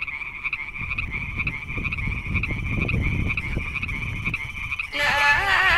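Frogs calling in a steady chorus, a rapidly pulsing high trill that runs on without a break. Music comes in about five seconds in and becomes the loudest sound.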